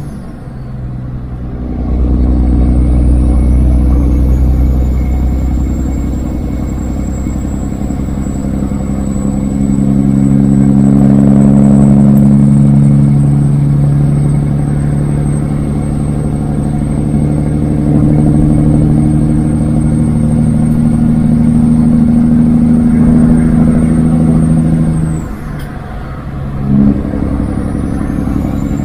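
Kenworth W900 semi truck's straight-piped diesel engine pulling steadily at highway speed under a heavy load, with a thin high turbo whistle above the exhaust note. Right at the start and again about 25 seconds in, the engine briefly drops off and the whistle winds down, then both pick back up.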